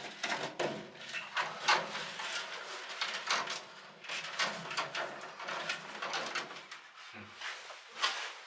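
Corrugated aluminium air duct crinkling and scraping as it is twisted and pushed onto a stove's outlet, in a run of irregular rustles and scrapes.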